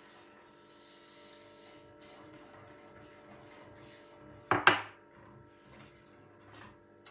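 A spoon stirring and scraping in a small saucepan, with one loud double scrape or knock against the pot about four and a half seconds in.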